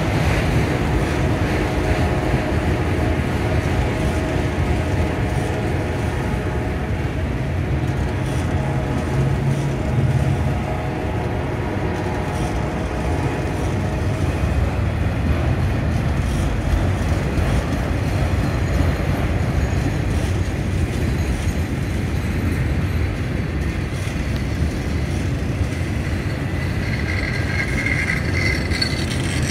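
Norfolk Southern freight train's autorack cars rolling past, a steady low rumble of steel wheels on rail. A high, steady tone joins near the end.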